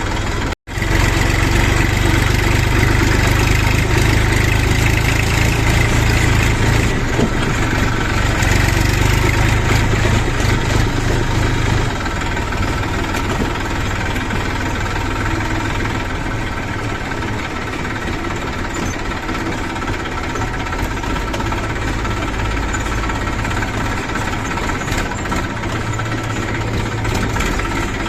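Diesel engine of a JCB 3DX backhoe loader running at work, with a brief break in the sound just after the start. It runs louder and heavier for the first twelve seconds or so, then eases to a steadier, lower running.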